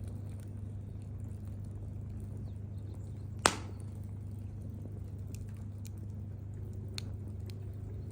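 Wood campfire crackling with faint scattered ticks, and one sharp, loud pop about three and a half seconds in, with a smaller pop near the end.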